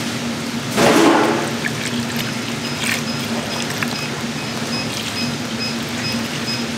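Liquid poured or splashed briefly about a second in, over the steady hum of food-factory kitchen machinery, followed by light clinks and a faint high beep repeating about twice a second.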